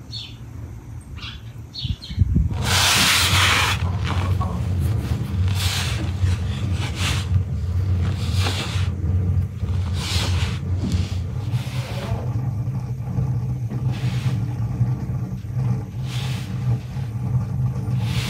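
Hands rubbing and squeezing a crumbly dough on a wooden board, a rough swishing every second or two, over a steady low rumble that starts about two seconds in.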